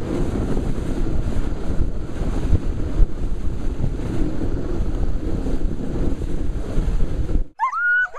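Wind buffeting the microphone: a loud, steady rumbling rush with no voices or tones in it. Near the end it cuts off suddenly, and a dog starts whining and yipping in short cries that rise and fall in pitch.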